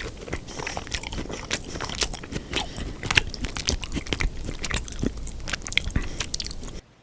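Close-miked biting and chewing of crispy deep-fried sweet and sour pork: rapid crunches and wet chewing clicks. It cuts off suddenly near the end.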